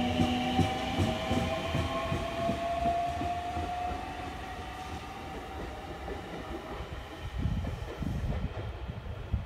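Orange-striped JR Central electric train accelerating away from the platform. Its motors whine with a slowly rising pitch over a low rumble of the wheels on the rails, and the sound fades as the train recedes, leaving uneven low thumps near the end.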